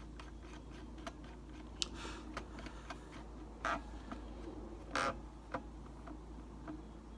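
Light handling clicks and taps of small parts and tools on a radio-control transmitter. There is a brief metallic ping about two seconds in and two louder knocks a little after halfway.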